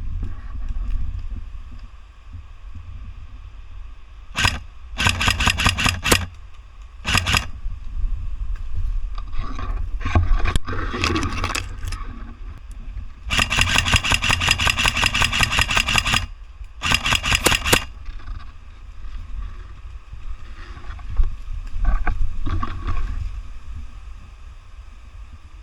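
Automatic airsoft guns firing several bursts of rapid shots. The longest burst runs about three seconds, after the middle, and shorter bursts come before and after it. A low wind rumble on the microphone runs underneath.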